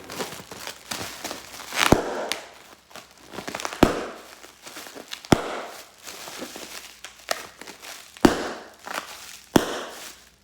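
Packaging being handled: rustling and crinkling broken by five sharp knocks, as boxes and wrapping are moved about and set down.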